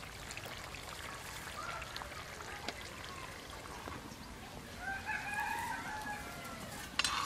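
A rooster crowing once, a call of over a second starting about five seconds in, followed near the end by a sharp clink.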